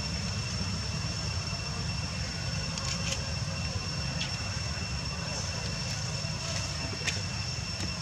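Steady low outdoor rumble with a constant thin high whine, broken by a few short clicks or chirps about three, four, six and a half and seven seconds in.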